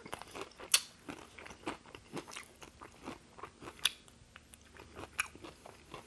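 Close-miked biting and chewing of crispy fried KFC hot wings: irregular crunches as the wing is bitten and picked off the bone, with sharp louder crunches a little under a second in, near four seconds and just past five seconds.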